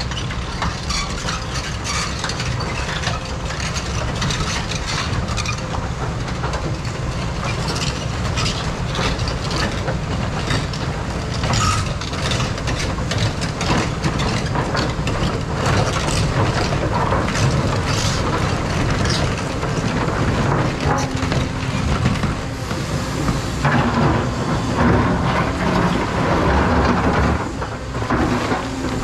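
Caterpillar 335 excavator's diesel engine running under load, with irregular clatter and scraping of rock and steel from the machine working stone.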